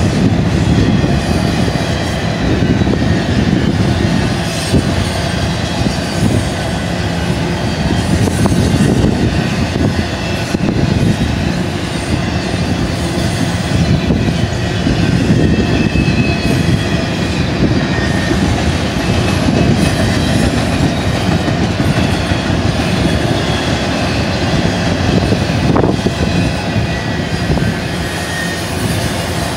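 Double-stack intermodal container train's well cars rolling past at speed: a loud, steady rumble of wheels on rail, with faint high squeals drifting in and out.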